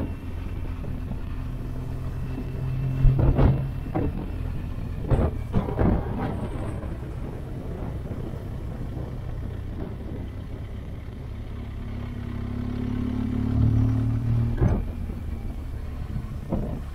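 BMW R 1200 GS flat-twin engine running under way, its note swelling twice as the bike accelerates, about two seconds in and again near the end, over steady wind noise. A few short thumps cut through.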